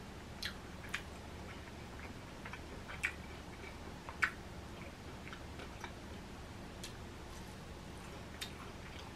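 Faint close-miked chewing of crunchy Flamin' Hot Cheeto-coated fried food, with a handful of sharp, scattered crunches or mouth clicks.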